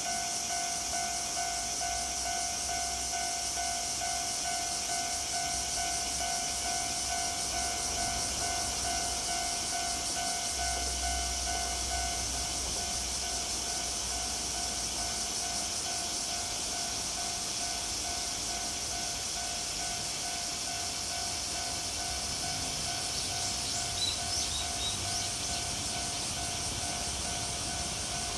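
Japanese railway level-crossing warning bell ringing steadily, one electronic tone repeating over and over, over a constant high shrill drone of cicadas. A low rumble rises briefly about ten seconds in.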